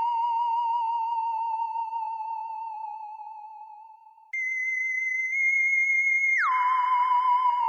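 Electronic sci-fi 'alien' sound effect: a warbling, theremin-like tone that fades away, then cuts back in an octave higher a little after four seconds, holds, and slides back down to the lower warble about two seconds later.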